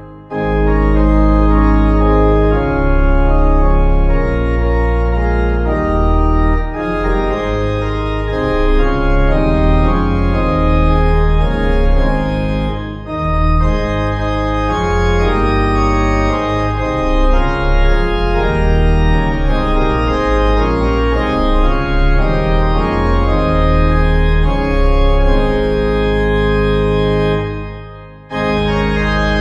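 Organ music of sustained, changing chords over a deep bass. It fades out briefly near the end and then starts again.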